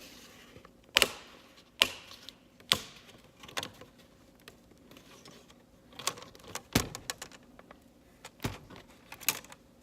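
Plastic laptop screen bezel being pried off, giving a series of sharp, irregular clicks and snaps as its clips pop loose.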